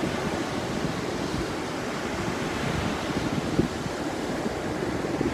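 Sea surf washing on a beach, a steady noise, with wind buffeting the microphone.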